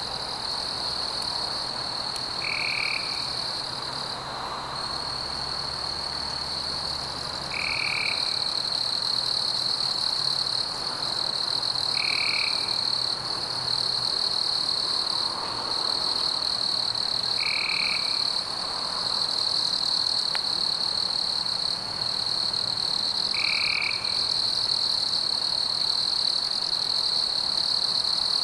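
Night chorus of frogs croaking over a steady high-pitched trill, with a short high call repeating about every five seconds.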